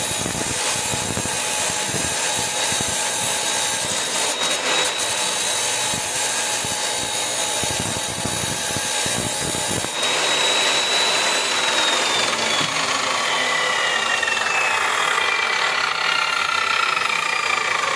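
Tractor engine running loudly, with a high whine over the engine noise. About ten seconds in the sound changes abruptly, and the whine then slowly falls in pitch.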